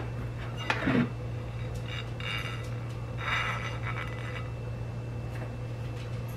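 Dinner plates being handled on a kitchen counter: a knock about a second in, then two short stretches of light scraping and rubbing, over a steady low hum.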